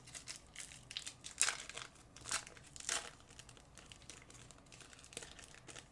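Trading-card pack wrappers crinkling and crackling as packs are opened and handled. The crackles are thickest in the first three seconds and sparser after that.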